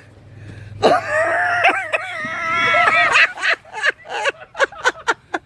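A high-pitched cry: one long wavering scream, then a quickening run of short sharp yelps.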